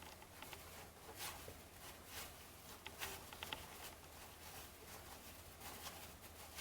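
Faint, scattered soft clicks and brief slides of 1989 Fleer baseball cards being flipped through one by one by hand, over a low steady hum.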